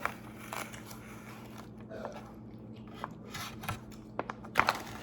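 A person chewing food close to the microphone, with wet mouth clicks and smacks. The sounds grow denser and louder about four and a half seconds in.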